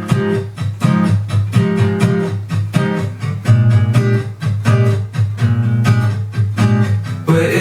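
Background music: a pop song's instrumental intro of strummed guitar over a steady bass line, in an even rhythm.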